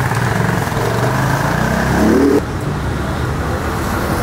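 Street traffic noise with a vehicle engine revving up, its pitch rising for about a second, then cutting off suddenly a little past halfway; steady traffic after.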